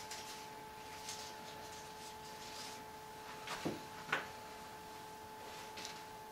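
Faint rustling of flower stems and foliage being handled, with two soft knocks about three and a half and four seconds in, over a steady electrical hum.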